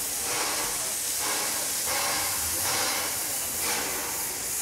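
Narrow-gauge steam locomotive hissing steadily as steam escapes around its cylinders, with four slow exhaust chuffs about a second apart as it gets under way.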